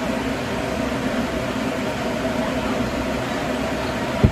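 Steady mechanical hum with hiss, the whir of a room fan or air-conditioning unit, with one short click shortly before the end.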